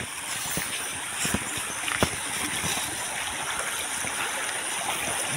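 Small stream running steadily, with a few soft footsteps on grass.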